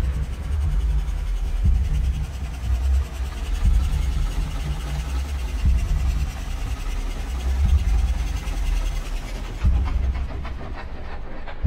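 Low, rumbling horror-film sound-design drone that swells in a deep pulse about every two seconds.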